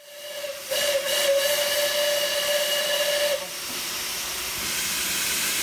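Steam locomotive whistle blowing one steady note for about three seconds and then cutting off, leaving the hiss of escaping steam.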